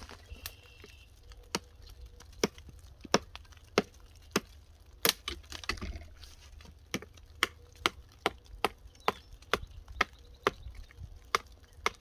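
Small hatchet made from a D2 tool-steel axe card lashed onto a stick handle, chopping the limbs off a small sapling: a run of about twenty sharp wooden chops, coming faster in the second half.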